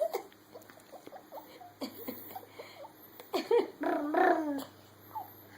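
A toddler making playful vocal noises: faint little sounds at first, then a short sound about three and a half seconds in and a longer, wavering one right after.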